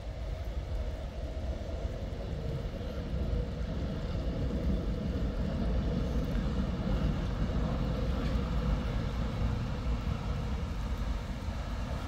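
A tram running on street track: a steady low rumble with a faint steady whine, growing louder to a peak about two-thirds through, then easing a little.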